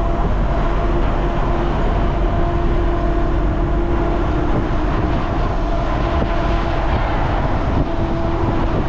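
A truck's engine and road noise heard from inside the cab while it drives, a loud, steady drone with a constant hum.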